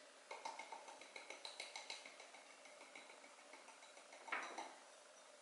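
Small ceramic bowl knocked against a white ceramic mixing bowl while emptying flour into it: a quick run of about a dozen light, ringing clinks over the first two seconds, tapering off, then a short soft rush about four seconds in.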